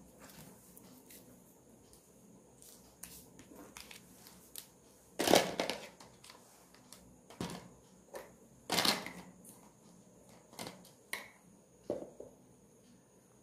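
Scattered clicks, knocks and rustles of handling noise, with two longer, louder rustling bursts about five and nine seconds in.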